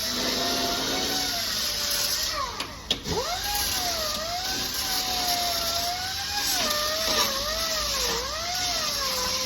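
Angle grinder grinding down welds on car body steel, its pitch wavering as it is pressed into the metal, with a brief drop and pick-up in speed about three seconds in.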